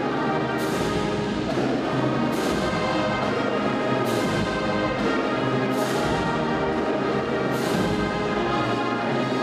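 A brass band or wind ensemble playing a slow, steady piece, with a cymbal crash about every second and a half to two seconds.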